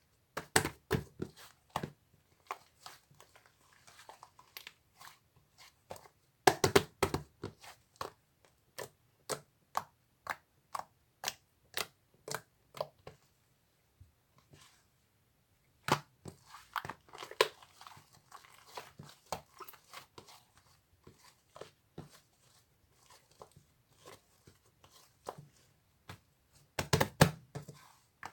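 Pink slime being squished, poked and stretched by hand, giving a run of sticky clicks and small air pops that come thicker in a few short flurries.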